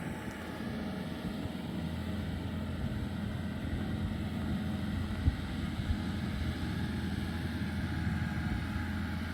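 Compact track loader (skid steer) engine running steadily as it works driveway gravel, with a couple of short knocks about five and six seconds in.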